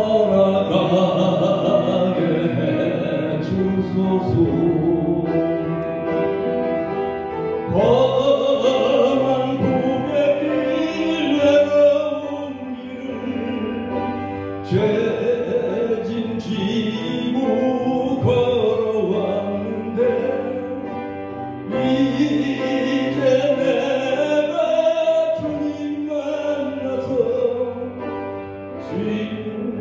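A man singing a Korean gospel hymn solo into a microphone, heard through the church's sound system over a sustained instrumental accompaniment, in long phrases with a wavering pitch.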